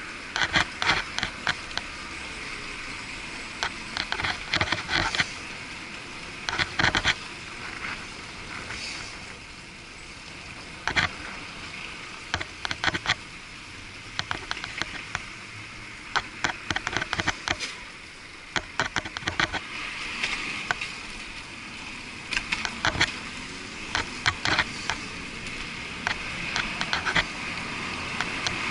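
Bicycle and its handlebar-mounted action camera rattling in short bursts of sharp clicks as the bike rolls over tiled and brick sidewalk paving, over a steady hiss of riding and street traffic noise. The sound is muffled by the camera's waterproof housing.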